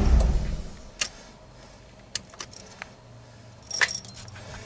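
A Nissan R32 Skyline's engine idling is switched off, its sound dying away within the first half-second. A few light clicks follow, and a short jingle of keys comes about four seconds in.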